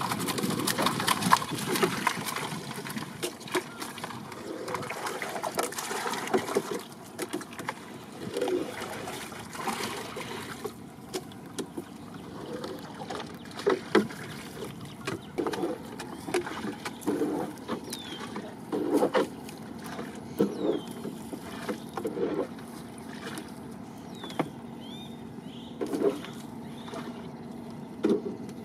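A wet nylon net shaken over a plastic crate, a dense patter of small clicks and rattles as shrimp, crabs and weed drop out, for the first several seconds. Then a collapsible ring trap net being hauled out of the river into a wooden boat, water dripping and splashing, with short knocks every second or two.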